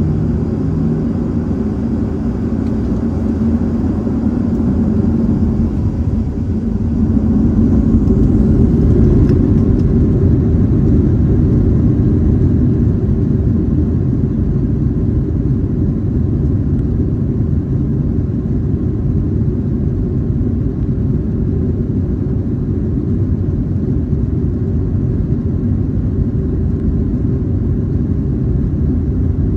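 Jet airliner taxiing, heard inside the cabin: a steady low rumble of engines and rolling wheels that grows a little louder about a quarter of the way in.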